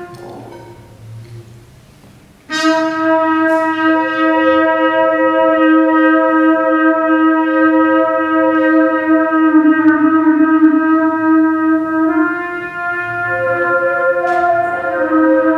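A trumpet plays one long held note in free improvisation. It comes in suddenly a couple of seconds in after a soft passage, bends briefly down in pitch, and shifts near the end. A few short crisp percussion strikes sound over it.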